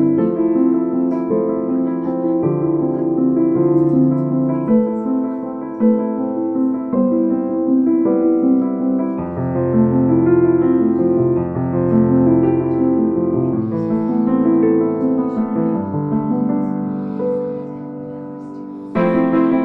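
Background music: soft piano and electric-piano chords with a slow, gentle melody, dipping quieter near the end before a brighter section comes in.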